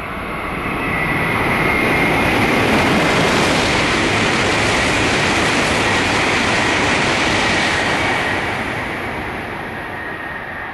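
E2 series Shinkansen bullet train passing through a station at high speed without stopping: a loud rush of air and wheels on rail that swells over about two seconds, holds, then fades over the last few seconds, with a steady high whine running through it.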